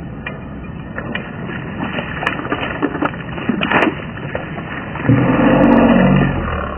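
Slowed-down replay audio of a smallmouth bass jumping and splashing at the river surface: a low, muffled wash of water with a few sharp smacks in the first four seconds. About five seconds in, a deep, drawn-out drone takes over.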